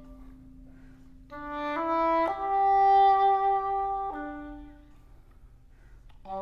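Oboe and cello playing a slow chamber-music passage. A quiet low note is held at first, then a phrase rises through three notes, holds the top one, steps down and fades, before a new note enters near the end.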